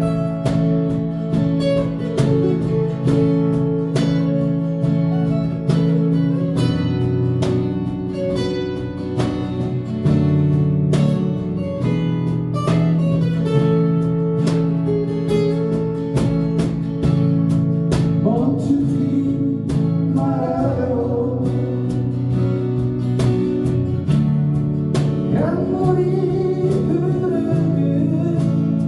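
Music led by acoustic guitar, with a voice singing at times.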